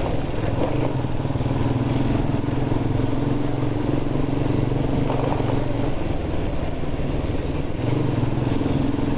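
Honda motorcycle engine running steadily at low road speed, heard from the rider's seat. The engine note eases briefly near the end.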